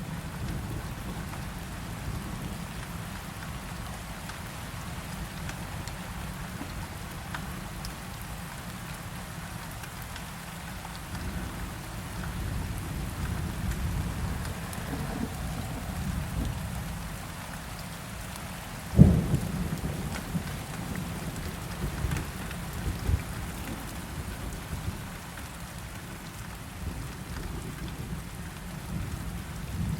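Steady heavy rain with low rolling thunder. About two-thirds of the way through, a sharp, loud thunderclap breaks out and rumbles away.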